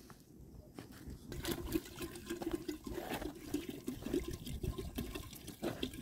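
Water being poured from a plastic jerrycan into a kettle, starting about a second in and gurgling unevenly as it pours.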